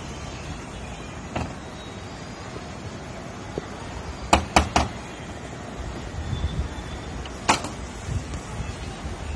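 Knocking on a wooden front door: three quick knocks about halfway through, then a single sharp knock about three seconds later.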